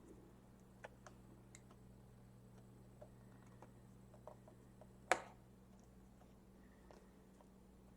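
Small, scattered clicks and taps of hands easing a laptop display cable connector onto the back of a replacement LCD panel, with one louder click about five seconds in. A faint steady hum runs underneath.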